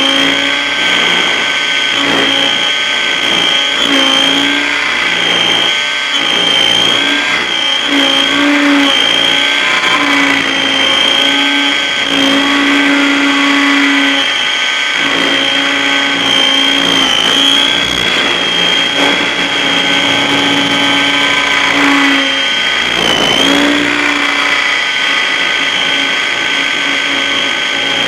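T-Rex 800 RC helicopter in flight, heard from its onboard camera: a loud, steady high-pitched motor and drivetrain whine with the rotor beneath it. A lower tone rises and falls and cuts in and out as the helicopter manoeuvres.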